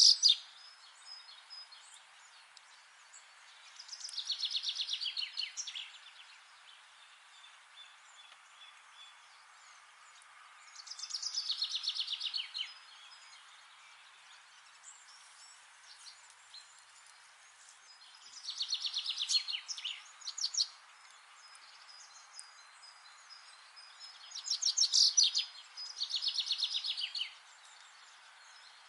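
A songbird repeating a fast, descending trilled song phrase about every seven seconds, with two phrases close together near the end, over a faint steady background hiss.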